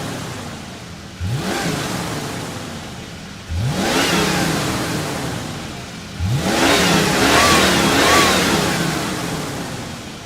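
Ford Mustang engine revved hard again and again: a sudden rise in pitch about a second in, at three and a half seconds and at six seconds, each followed by the revs falling away, the last one held longest and loudest before fading near the end.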